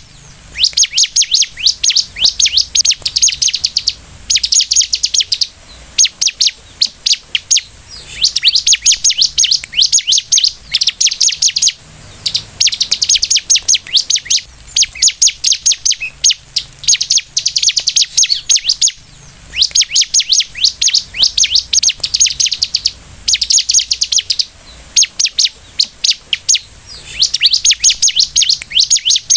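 Bar-winged prinia (ciblek) singing loudly: fast, high-pitched chattering trills in bursts of about a second, repeated again and again with short pauses.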